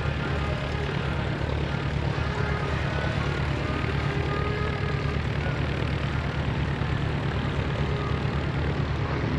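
Cessna 140's small piston engine and propeller droning steadily as the light plane flies past.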